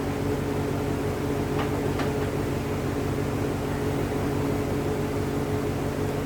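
Steady machine hum with a few fixed tones, with two faint ticks about one and a half to two seconds in.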